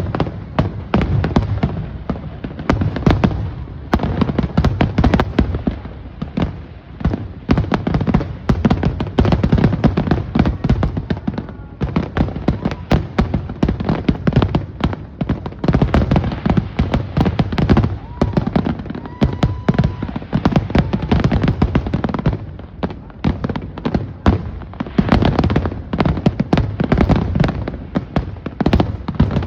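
Aerial fireworks bursting in a dense, continuous barrage of booms and crackles, many shots a second with no real pause.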